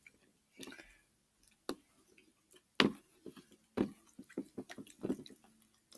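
White-glue slime activated with borax water being squeezed and worked by hand in a plastic bowl: scattered soft sticky squishes and small clicks, with a few sharper wet pops.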